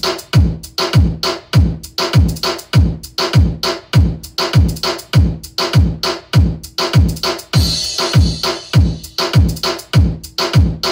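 Bass-heavy electronic dance music played loud through a subwoofer and mid-high speaker for a sound check. Deep drum-machine kicks with a falling pitch hit about twice a second.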